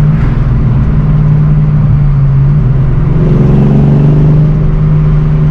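1986 Mustang GT's 5.0 V8 running steadily while driving, its note dipping a little about two and a half seconds in and rising again a second later. The header exhaust leak has been fixed, so no leak can be heard.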